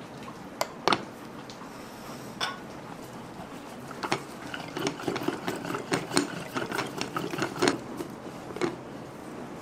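Wooden stirring stick spun back and forth between the palms inside a wooden pot, its paddle end clacking and rattling against the wooden sides. A few single wooden knocks near the start, then a fast, uneven clatter from about four seconds in until shortly before the end.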